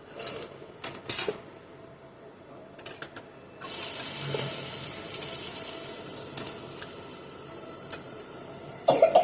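A few clinks of a utensil against a pan, then about three and a half seconds in food goes into hot oil and starts sizzling, a sudden loud hiss that slowly fades.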